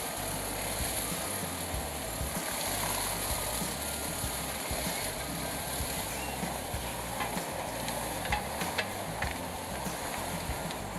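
Wood chipper at work, heard as a steady noisy hiss with scattered crackles and a few sharp clicks.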